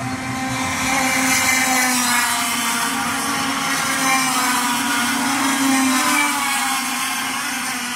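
Racing go-kart engines at high revs: a loud, high-pitched buzzing whine whose pitch rises and falls as the karts pass, fading near the end.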